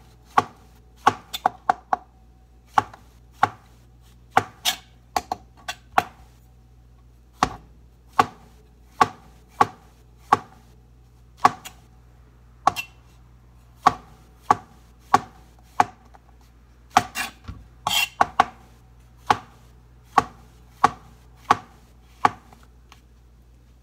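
Chef's knife slicing button mushrooms on a plastic cutting board: a sharp knock each time the blade comes down through a mushroom onto the board, irregular at roughly one or two a second, with a quicker run of cuts about three-quarters of the way through.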